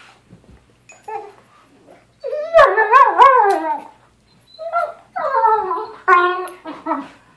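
A dog vocalizing during rough play, in drawn-out calls whose pitch wavers up and down. The longest and loudest bout starts about two seconds in and lasts over a second, followed by a string of shorter calls toward the end.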